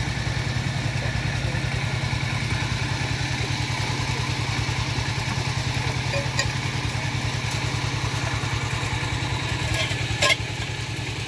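A small engine running steadily with a fast, even pulse. A short, sharp clatter comes about ten seconds in.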